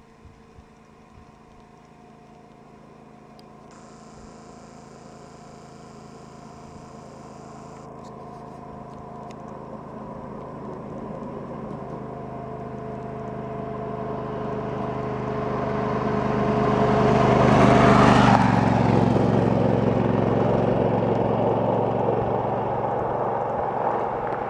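A motorcycle approaching along a gravel road, its engine and tyre noise growing steadily louder, passing close about eighteen seconds in with a sudden drop in pitch, then fading as it rides away.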